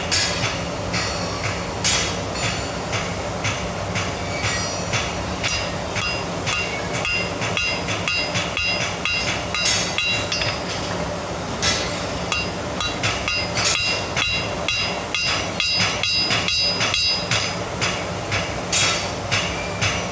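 Hammer striking hot steel on an anvil to forge-weld it, in quick runs of several blows a second, the anvil ringing between strokes, over a steady low hum.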